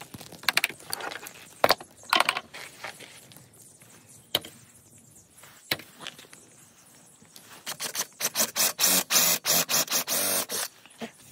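Clicks and knocks of a toggle clamp and tools handled on a wooden rail, then, in the last few seconds, a cordless drill boring a large hole into the wood in a quick run of loud pulses that stops shortly before the end.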